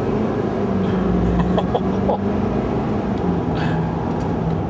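Diesel pickup engine running on a natural gas and diesel dual-fuel CNG conversion, pulling hard at full throttle, heard from inside the cab. Its steady drone drops in pitch about three seconds in as the transmission shifts up.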